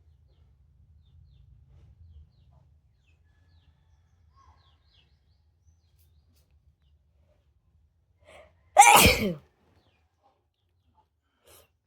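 One loud sneeze, a little over a second in from its start and about half a second long, with a short breath drawn in just before it.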